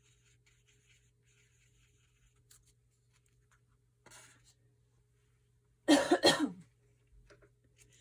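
A paintbrush swirling paint on a paper plate with quick, faint scrubbing strokes for the first two seconds, a brief rustle about four seconds in, then a loud double cough about six seconds in.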